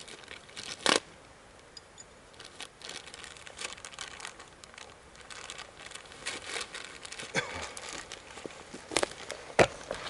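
Clear plastic bag crinkling as it is handled, with a run of small crackles and a few sharp snaps, the loudest about a second in and twice near the end.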